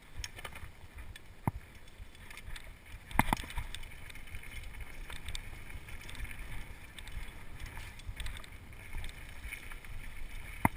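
Downhill mountain bike rolling over a rough trail, heard from a chest-mounted camera: a steady rumble and rattle of tyres and frame, with sharp knocks from bumps, the loudest about three seconds in. It grows slowly louder as the bike picks up speed.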